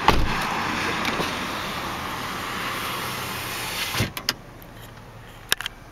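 Electric power-window motor in a 2007 Chevrolet Impala door running steadily for about four seconds, then stopping with a thump and a click as the glass reaches the end of its travel. The idling engine hums underneath, and a couple of sharp clicks come near the end.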